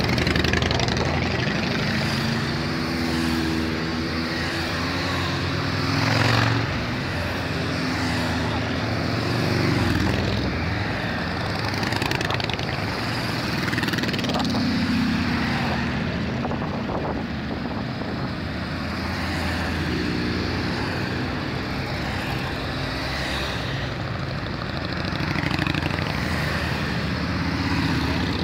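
A stream of motorcycles riding past one after another, their engines swelling and fading as each one goes by. The loudest pass comes about six seconds in.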